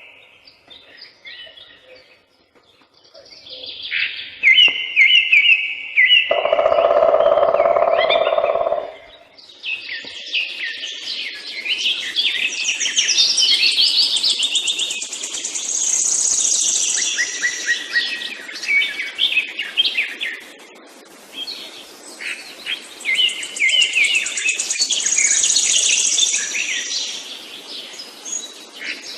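Songbirds singing in a summer forest: short chirps at first, then from about a third of the way in one bird sings long, fast, high trilled phrases, with a pause in the middle.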